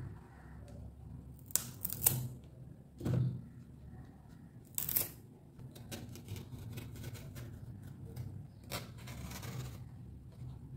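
Kitchen knife slicing the tough peel off raw green bananas on a wooden chopping board: a handful of sharp cuts and knife knocks on the board, with the peel scraping and tearing.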